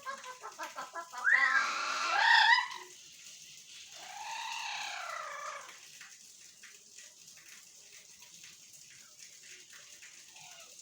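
Parrots calling: a quick run of short repeated notes, then loud squawks that glide up and down in pitch about a second in, and a single long call rising and falling around four seconds in. After that there are only faint small ticks.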